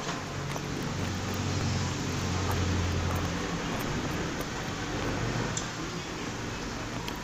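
Low engine hum of a passing motor vehicle, swelling about a second in and easing off after three seconds.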